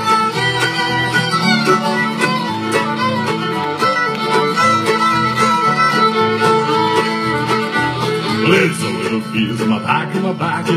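Live bluegrass band playing an instrumental break of an old Irish tune: fiddle carrying the melody over guitar, banjo, mandolin and upright bass keeping a steady rhythm.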